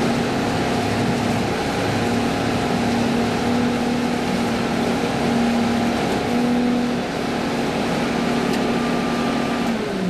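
Househam self-propelled sprayer's engine and drive running steadily, a constant drone with a hum, heard inside the cab while the machine travels along the field boundary.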